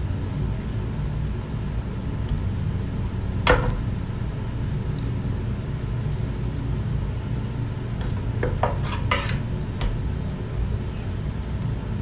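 A few sharp clicks and knocks on a wooden cutting board as raw chicken is skinned by hand beside a kitchen knife: the loudest about three and a half seconds in, a few more in quick succession near nine seconds. Under them runs a steady low hum.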